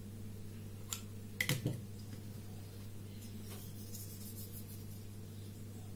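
Light clicks and knocks from hands handling a cardboard template, scissors and mask fabric, the loudest a quick pair about a second and a half in, with faint rustling later, over a steady low hum.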